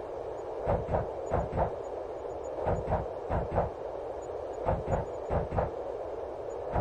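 Train wheels running over rail joints: paired clacks, about a third of a second apart, repeating in a steady clickety-clack over a continuous running rumble.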